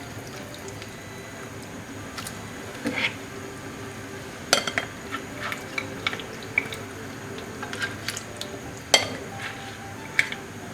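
Scattered clinks and knocks of a utensil against a cooking pot as duck pieces are put into a boiling coconut-milk masala and stirred, over a faint steady hum.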